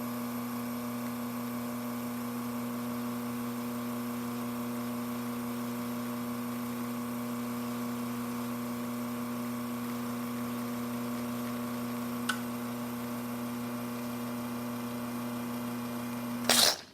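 Rocket espresso machine's pump humming steadily as it pulls an espresso shot, with a faint click partway through. Near the end the pump is switched off with a short loud burst of noise, and the hum stops.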